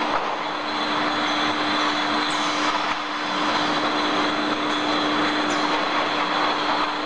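Steady running noise of a bottle conveyor line carrying glass vials, with a constant hum.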